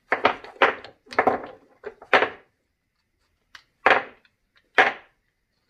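18650 lithium-ion cells being worked out of a plastic cell holder and knocked down onto a wooden workbench: about eight short, hard clacks and knocks, with a pause of about a second near the middle.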